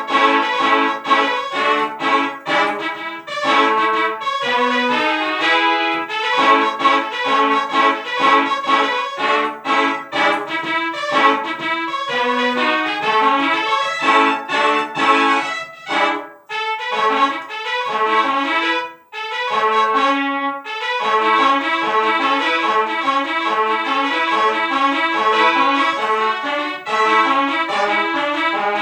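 Instrumental background music with a trumpet-like lead melody, briefly dropping out twice about two thirds of the way through.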